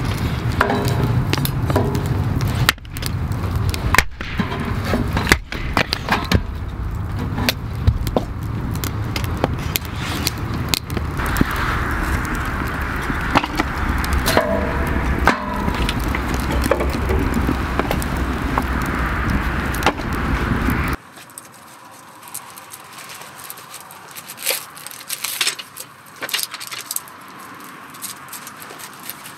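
Wood fire burning in a metal camp stove: a steady rush with frequent crackles and pops. About 21 seconds in it gives way to a much quieter stretch with a few light knocks of a knife cutting an onion on a wooden board.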